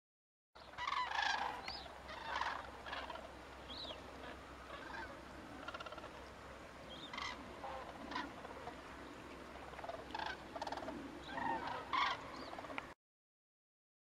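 A flock of common cranes calling, many overlapping calls, loudest about a second in and again near the end, over a steady low hum. The sound starts abruptly and cuts off abruptly.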